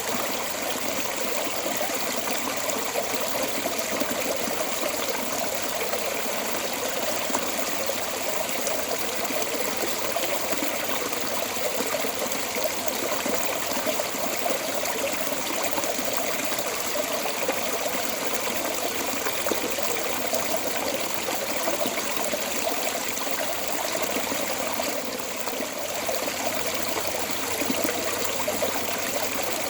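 Water flowing steadily out of a storm drain outlet, an unbroken splashing rush.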